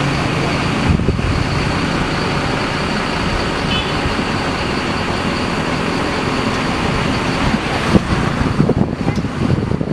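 Steady engine and road noise of a moving intercity bus, heard from inside the cabin: an even rumble and hiss with a faint high whine, and a few knocks and rattles near the end.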